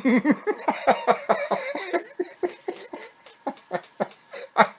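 A man laughing in quick, pitched bursts that thin out into breathy gasps, with one louder burst near the end.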